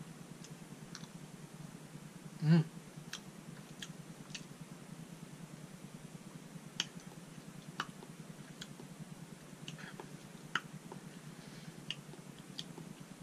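A man's mouth clicking and lip smacking as he tastes hot pepper powder: scattered soft clicks, with one short hum about two and a half seconds in.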